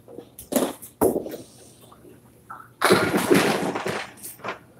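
Candlepin bowling: two sharp knocks of a ball on the lane near the start, then a loud clatter of candlepins and wood lasting just over a second about three seconds in.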